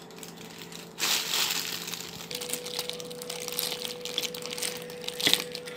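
Crisp fried salted fish being pulled apart with a fork and a plastic-gloved hand on a plate: crackling of the crisp skin and flesh and crinkling of the thin plastic glove, starting about a second in, with one sharp click near the end.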